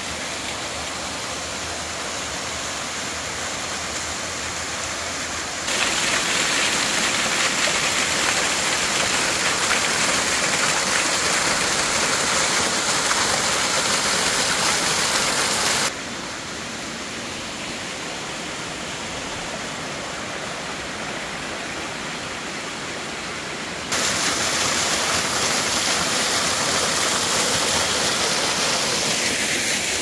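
A multi-tiered cascading waterfall rushing steadily. It steps abruptly louder about six seconds in, drops back about sixteen seconds in, and jumps louder again about twenty-four seconds in.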